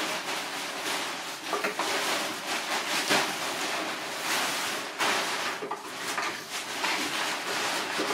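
Sheet material rustling and crinkling as it is handled and laid out on a workbench, a continuous run of crackles with a faint steady hum beneath.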